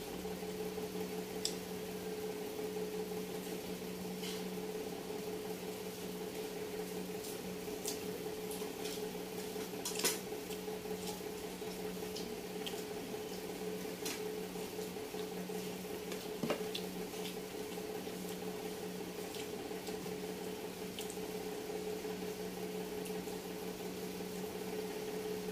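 Eating sounds: wet chewing and scattered small clicks of dishes, over a steady electrical hum. Two sharper clicks come about ten seconds in and again about sixteen seconds in.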